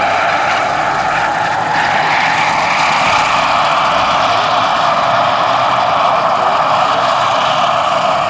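Jakadofsky Pro 6000 model gas turbine powering a 1:6 scale RC Bell AH-1W Super Cobra helicopter, running steadily in flight with an even rushing whine.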